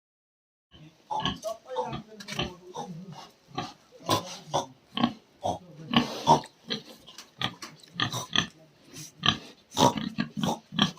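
An animal grunting in short, irregular bursts, two or three a second, starting after a second of silence.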